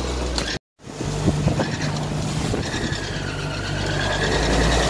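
Wind buffeting the microphone and waves rushing and splashing along the hull of a sailboat under sail in rough water. The sound drops out completely for a moment about half a second in.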